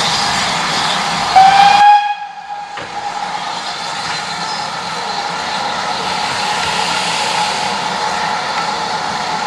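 A steam locomotive's whistle gives one short blast about a second and a half in, then a steady hiss of escaping steam.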